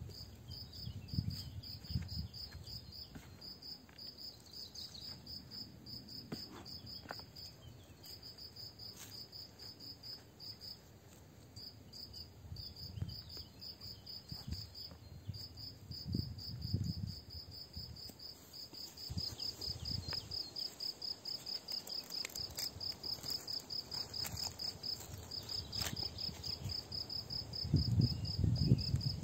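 Crickets chirping in a fast, steady pulsing rhythm with short pauses. Soft low rustles and bumps of gloved hands working loose soil come and go, growing louder near the end.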